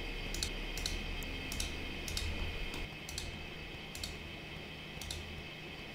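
Irregular clicking from a computer mouse and keyboard being used at a desk, about ten sharp clicks over the stretch, over a faint steady hum.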